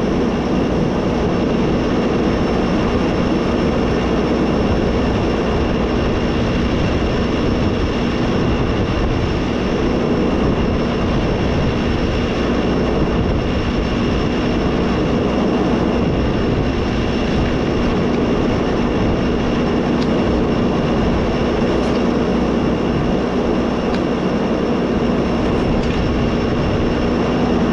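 Farm machinery running steadily at a constant speed, a dense mechanical rush with a steady low hum and a thin high whine over it.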